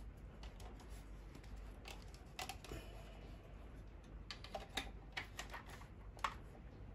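Scattered light clicks and knocks from the rail handguard of an airsoft M4 being handled and fitted onto the gun, more of them in the second half.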